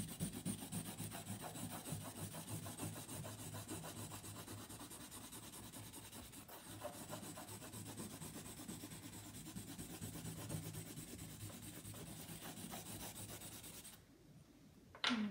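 Willow charcoal stick scratching across cartridge paper in quick back-and-forth strokes, laying down a solid layer over the whole page. The scratching stops about a second before the end.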